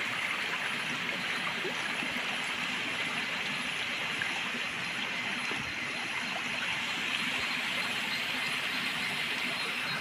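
Shallow stream running steadily over flat rock ledges: an even rushing of water with no pauses.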